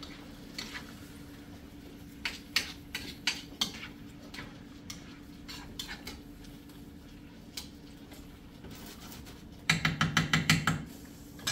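Spoon clinking and scraping against a skillet as shrimp and garlic are stirred, with a quick run of about ten clanks near the end. A steady low hum sits underneath.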